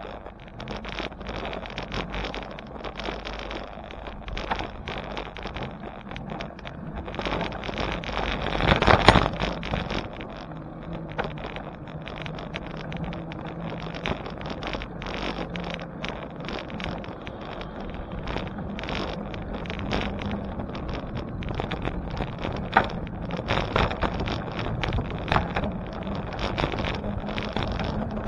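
Riding noise from a bicycle on the move: wind rushing over the microphone and steady road rumble, broken by many small rattles and clicks. There is a louder burst of noise about nine seconds in.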